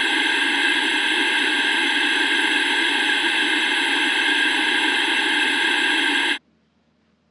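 Loud, steady hiss of noise like static, with no rhythm or pitch. It starts abruptly and cuts off suddenly a little over six seconds in.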